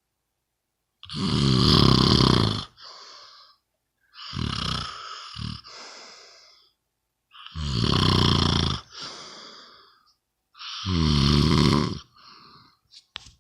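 Loud, rattling snoring, four snores about three seconds apart, each followed by a quieter, airy breath.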